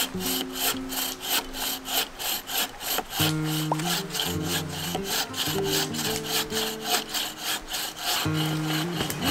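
Bow saw cutting through a dry hardwood log in fast, even back-and-forth strokes, about four to five a second.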